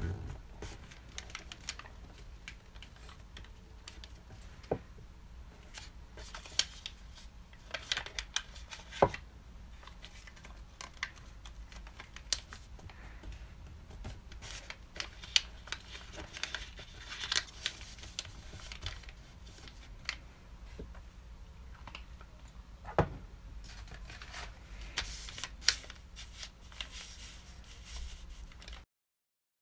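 Sheet of origami paper rustling and crinkling as it is folded and pressed flat by hand, with scattered sharper clicks. The sound cuts off suddenly near the end.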